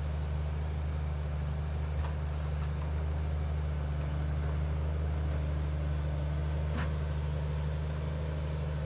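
Large engine of heavy machinery running steadily at a constant speed, a low even hum.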